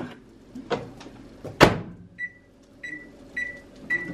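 Two sharp clacks, the second the louder, then four short, even electronic beeps about half a second apart: a microwave oven's door shutting and its keypad being pressed to start it.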